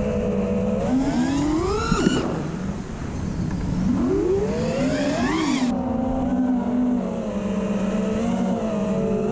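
FPV quadcopter's brushless motors (Stout v3 on 6S) whining with the propellers. The pitch climbs sharply twice with throttle punches, about two and five seconds in, then drops back to a steady cruising whine.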